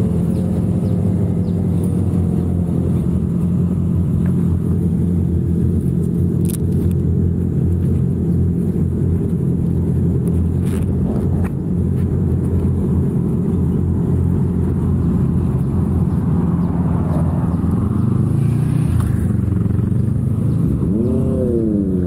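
A stationary motorcycle's engine idling steadily. Near the end, approaching motorcycles' engines rise and fall in pitch as they ride up.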